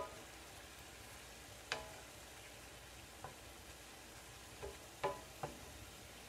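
Ground beef sizzling faintly as it browns in a cast iron skillet, while a wooden spatula stirs it, knocking against the pan with a few sharp knocks that ring briefly.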